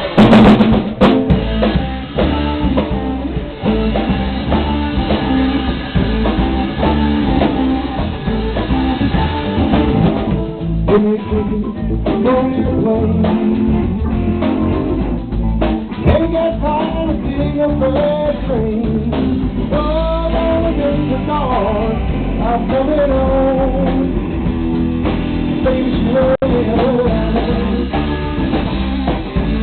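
Live blues band playing loud, kicking in at the start: Les Paul-style electric guitar and drum kit, with a man singing later on.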